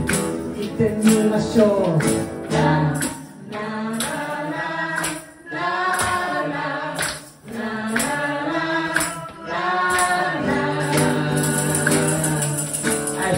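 Male and female voices singing a pop song together, with hand claps and a tambourine keeping a steady beat.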